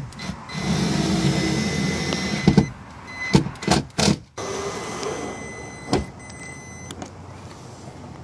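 Cordless drill-driver whirring as it drives a screw through the cab roof to fix a cab light: one run of about two seconds, then several sharp clacks, then a shorter, quieter run.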